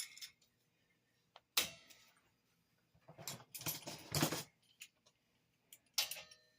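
Steel vise-grip locking pliers being handled and set up: metal clinks and rattles, with a sharp clack about a second and a half in, a run of clattering a little past the middle, and another clack near the end.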